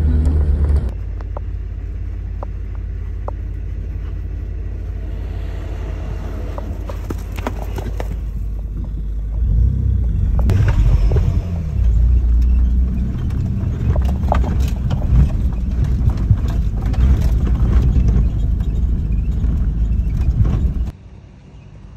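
Four-wheel-drive vehicle crawling over a rough dirt track, its engine and tyres making a steady low rumble heard from inside the cabin, with scattered sharp clicks and knocks. The rumble grows louder about halfway through and drops away sharply about a second before the end.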